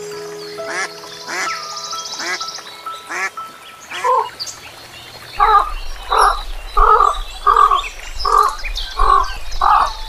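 Ducks quacking over steady background music. From about halfway on comes a regular run of louder short calls, roughly one every 0.6 seconds, with a low hum beneath.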